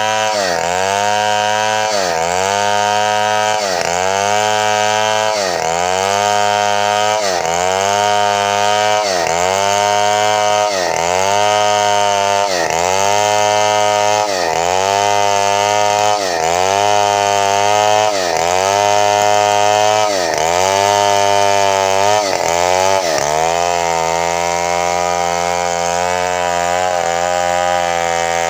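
Chainsaw mill cutting a bayur log lengthwise into planks, the chainsaw engine running under load. Its pitch dips and recovers about every second and a half as the bar bites into the wood, then evens out for the last few seconds.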